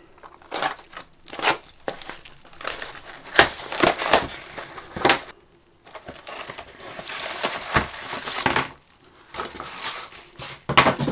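A taped brown-paper parcel being cut and pulled open by hand: the paper and packing tape crinkle and tear in irregular rustles, with a short break about halfway through.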